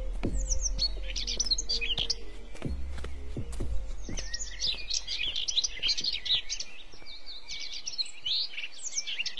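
Small birds chirping and twittering, many short high calls overlapping in a busy chorus that grows denser after about four seconds. A low hum underneath fades out about four seconds in.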